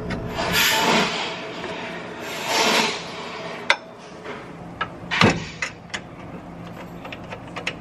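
Brake caliper and its bolts being handled and fitted by hand: two scraping rubs in the first three seconds, then a few sharp metal clicks, the loudest about five seconds in.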